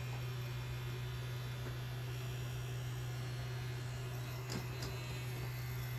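Small battery-powered electric herb grinder's motor running with a steady low hum while it spins parsley, with two light taps about four and a half seconds in.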